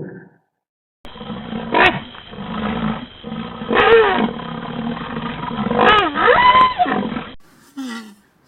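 Film sound effect of a rhinoceros: a run of loud, roaring calls whose pitch sweeps down and back up, the strongest about two, four and six seconds in, ending suddenly; a short call follows near the end.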